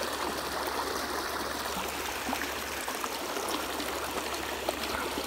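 Shallow river running steadily over cobbles and rocks, a continuous rushing babble of water.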